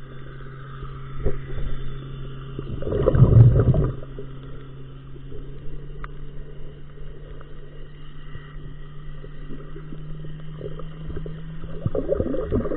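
Muffled underwater ambience heard through a camera's waterproof housing, with a steady low drone throughout. A loud rush of water swells about three seconds in, and crackling water noise returns near the end.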